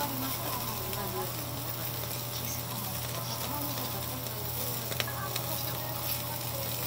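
Thin slice of hiuchi beef sizzling steadily on a gas-fired yakiniku grill grate, over a low steady hum, with a single sharp click about five seconds in.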